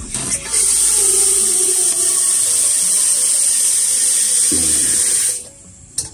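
Water running hard from a tap into a sink as a steady hiss, starting about half a second in and cut off suddenly after about five seconds.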